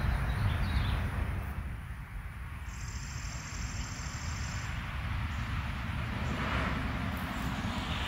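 Road traffic rumbling past, a vehicle fading away about two seconds in and another building up toward the end. A brief high trill sounds for about two seconds in the middle.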